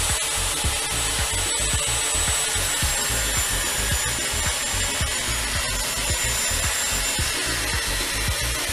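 Electric angle grinder's disc grinding into steel rebar held in a vise, a continuous harsh grinding noise with a thin high whine that drops slightly in pitch about three seconds in.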